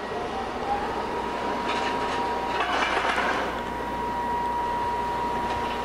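Rotary pile-drilling rig running steadily as its auger drills down inside a steel casing pipe: a constant machine drone with a steady high whine, and a brief louder noisy stretch about halfway through.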